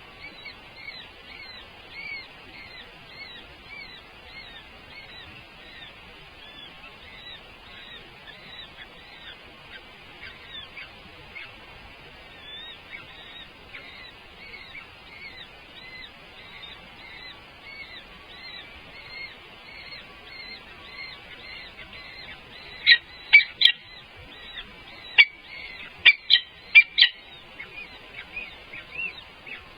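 Birds calling: a steady run of short, high chirps, two or three a second. About three-quarters of the way through come several much louder, sharp calls.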